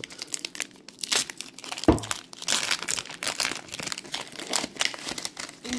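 Foil wrapper of a Pokémon booster pack crinkling and tearing as it is ripped open by hand, with a dull thump about two seconds in.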